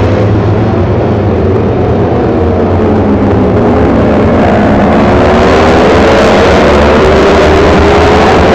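A pack of Kawasaki Ninja 250 four-stroke racing motorcycles at high revs, many engine notes overlapping and rising and falling as the riders work through a bend. It grows louder about halfway through as the pack comes closer.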